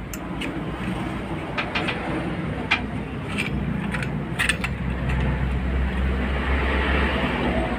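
Chrome motorcycle exhaust pipes and mufflers in plastic bubble wrap being handled, with several sharp clinks and crinkles, over a low engine rumble that grows stronger in the second half.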